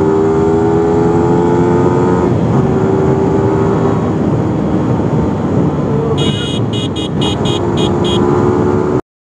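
Yamaha R15 V3's 155 cc single-cylinder engine running steadily at cruising speed, with a constant rush of wind and road noise. From about six seconds in, a rapid run of about seven short, high-pitched beeps sounds over it, and the audio cuts off just before the end.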